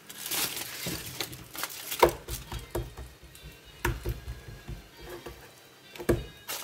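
Hands patting and pressing an oiled ball of msemen dough flat on a bamboo cutting board: irregular soft pats and knocks, with a brief rustle at the start and a sharper knock about two seconds in.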